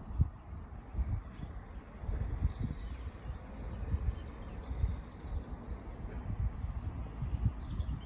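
Small birds chirping and singing in quick short calls, over an irregular low rumble of wind buffeting the microphone.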